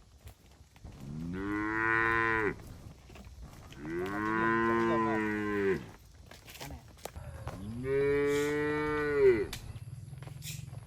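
Cattle mooing: three long moos, each lasting about one and a half to two seconds, a couple of seconds apart.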